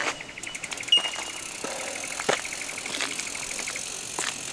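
Bicycle coasting along a road: a brief high squeal about a second in, then about two seconds of rapid, even freewheel ticking, with scattered knocks and rattles from the bike over bumps.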